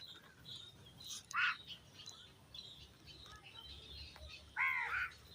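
Birds calling outdoors: a steady scatter of high chirps, with a louder pitched call about a second and a half in and another, longer one near the end.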